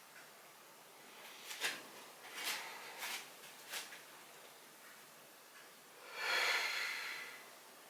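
Human joints cracking: a handful of short, sharp pops over about two seconds, then a longer rushing sound that lasts about a second and a half near the end and is the loudest thing heard.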